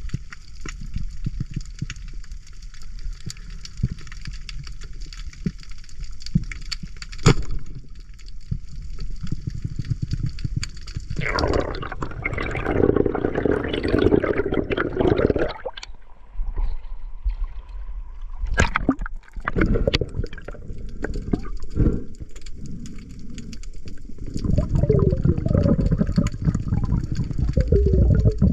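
Water sloshing and gurgling heard through an underwater camera, a steady low rumble with scattered clicks. A louder stretch of gurgling comes about halfway through.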